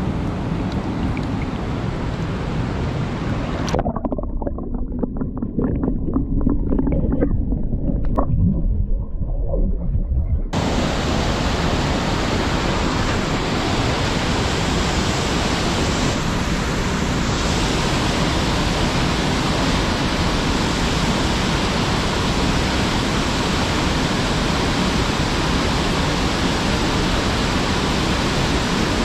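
Rushing water of a mountain stream, a steady full hiss. For several seconds, starting about four seconds in, it turns deep and muffled with a few knocks and splashes, then the full rush cuts back in suddenly.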